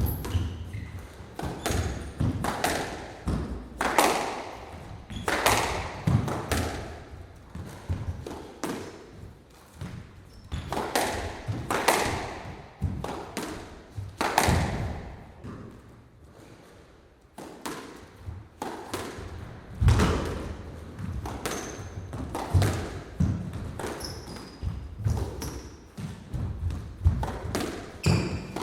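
Squash rally: the ball struck by rackets and thudding off the court walls, each hit echoing in the court. There is a short lull a little past the middle.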